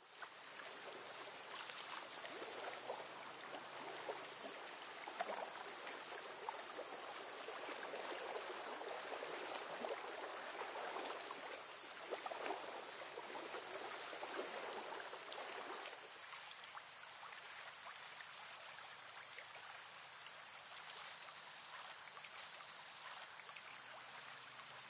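Shallow water lapping and trickling, with a steady high-pitched insect drone behind it. The water sound eases about two-thirds of the way through.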